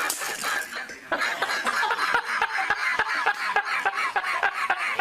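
Laughter in quick repeated bursts, starting about a second in and cutting off at the end.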